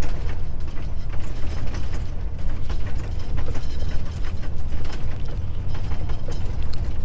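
Truck cab shaking over a badly broken road, with constant irregular rattling and knocking over a steady low rumble.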